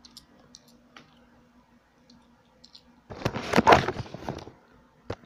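Handling noise from the recording camera as it is picked up and moved: faint clicks, then a loud rustle with bumps about three seconds in lasting about a second, and a sharp click near the end.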